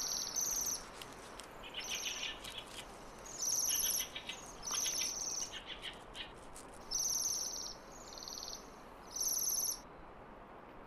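Songbirds calling: a series of short, high trilling calls, each about half a second long, some pitched lower than others, over a faint steady hiss.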